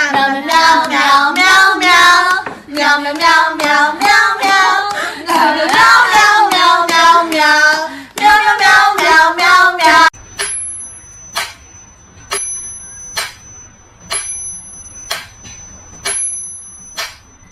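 A high voice in long, wavering, sung-like notes for about ten seconds, then a run of sharp clicks about once a second with a faint steady high tone behind them.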